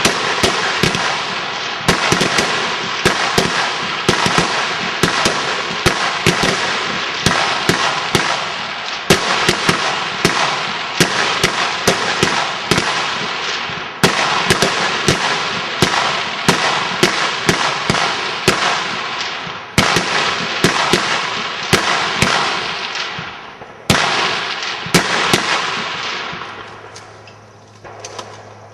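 Rapid fire from many high-power rifles along a firing line during a rapid-fire string: overlapping shots, several a second, each with a long echo. The firing thins out and stops a few seconds before the end, leaving the echo to fade.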